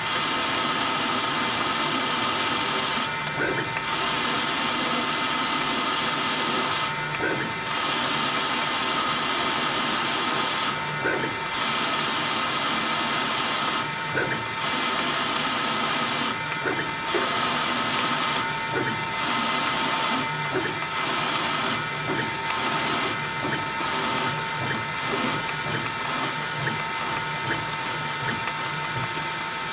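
CNC-converted Myford ML7 lathe running, with a steady mix of whines from its motor and stepper drives. A short burst repeats every few seconds and comes closer together near the end as the lathe turns a small ball handle.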